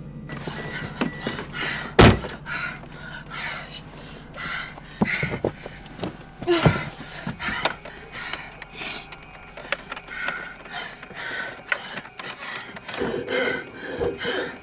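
A single loud thump about two seconds in, followed by a woman's rapid, frightened breathing and small gasps.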